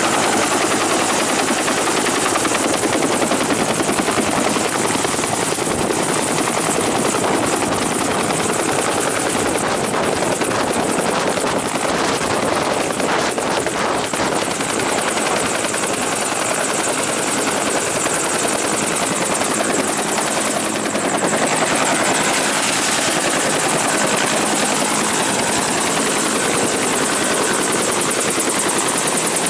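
Two-bladed Huey-type helicopter approaching and setting down close by, its turbine and rotor running loud and steady. The blade beat is sharpest in the first half.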